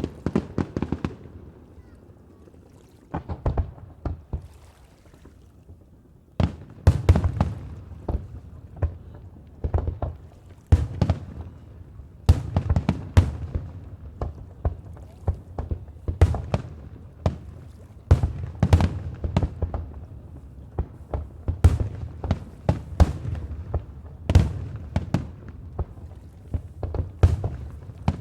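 Fireworks shells bursting in the air: a series of sharp bangs at an irregular pace, each with a short rumbling echo. There are only a few bangs for the first several seconds, then they come thick and fast from about six seconds in.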